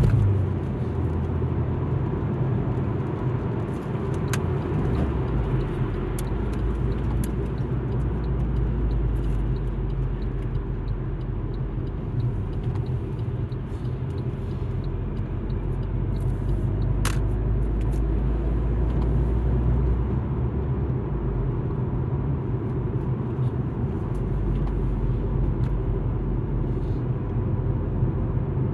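Alfa Romeo MiTo driving along: a steady low rumble of engine and tyre noise, with a few faint clicks.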